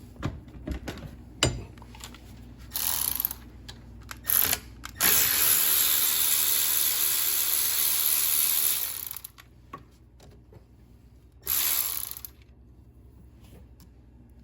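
Ratchet wrench working a 7 mm bolt out of an engine's coil-pack bracket. It comes in short bursts of ratcheting, then a steady run of about four seconds, then one more short burst, with small tool clicks in between.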